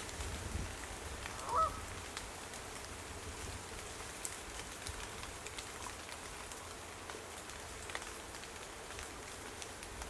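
A single short, pitched animal call about one and a half seconds in, over a steady low rumble and a few faint ticks.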